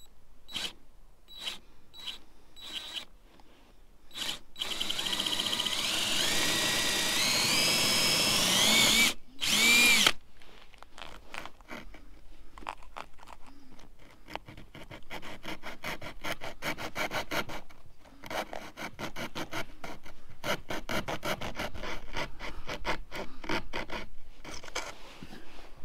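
Cordless drill boring into a fiberglass boat gunwale for about five seconds, its pitch rising as it runs, then a short second burst. After that, a small hand saw blade rasps back and forth in quick, even strokes, cutting the fiberglass along the drilled corners.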